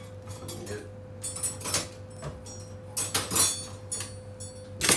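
Sharp clinks and knocks of metal utensils being handled on a stainless steel bench: a few scattered strikes, the loudest near the end.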